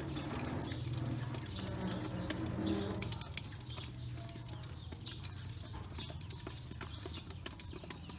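Pekin ducklings peeping and pecking feed in a metal bowl, with many quick clicks of bills on the metal, over a low steady hum.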